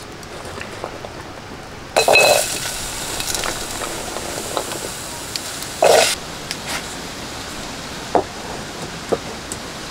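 Jackfruit seeds tipped into a hot pan: a clatter about two seconds in, then a steady sizzle as they start to roast. A second clatter of seeds follows about four seconds later, then a few light knocks of seeds against the pan.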